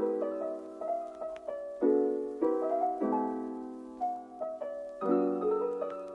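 Background piano music: chords struck every second or two, each dying away, with lighter single notes between.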